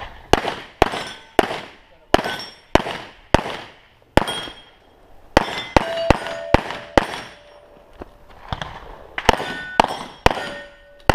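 Pistol shots fired in quick strings of two or three with short pauses between them. Several hits are followed by steel targets ringing with a clear, lingering tone.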